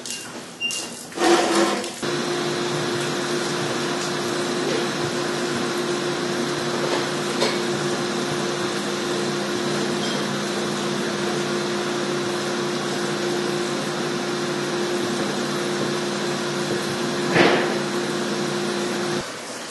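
A machine motor running steadily at one pitch. It starts after a couple of knocks about a second in and cuts off near the end, with one louder swish shortly before it stops.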